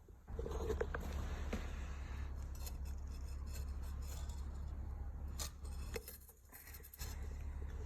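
TIG welder arc running as an arc furnace on a graphite crucible: a steady low hum with scattered crackles and clicks. It cuts out for about a second around six seconds in, then starts again.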